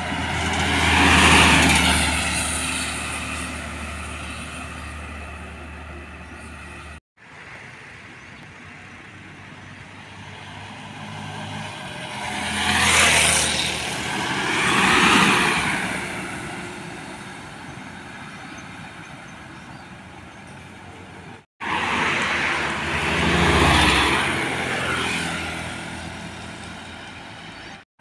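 Diesel trucks passing close by on a highway one after another, each one's engine and tyre noise swelling and fading away; four pass-bys in all, with two abrupt cuts between them.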